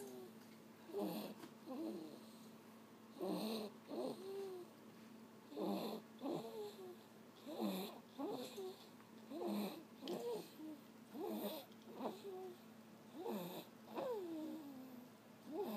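Snoring: a squeaky, pitched snore on each breath, in and out, repeating about every two seconds.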